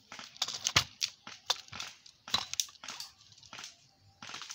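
Leaves and stems rustling and crackling right against the camera in irregular bursts, with one sharp snap about a second in.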